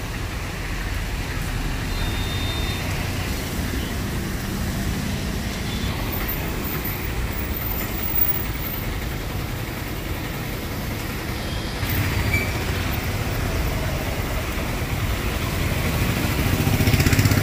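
Steady traffic on a rain-soaked street: car and motorbike engines running and tyres on the wet road, over the noise of falling rain. The traffic gets louder near the end as a vehicle comes close.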